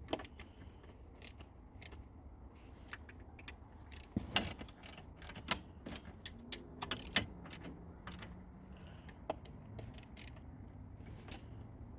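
Hand ratchet wrench and metal tools clicking and clinking irregularly while the starter's mounting bolts are run in and snugged hand-tight, with a few louder metallic knocks around the middle.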